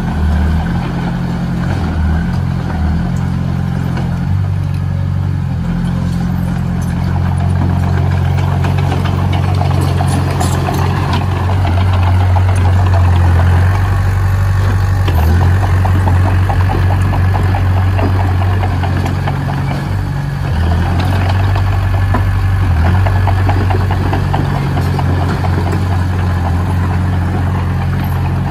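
Heavy diesel engine of earthmoving machinery running steadily, its low drone shifting in pitch now and then as the load changes.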